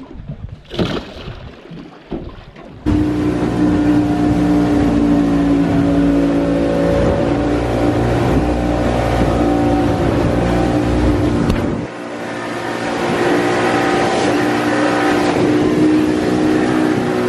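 Outboard motor running steadily at speed, with wind and rushing water from the hull and wake. It starts abruptly about three seconds in, after a few seconds of quieter handling and water noises, and dips briefly about twelve seconds in.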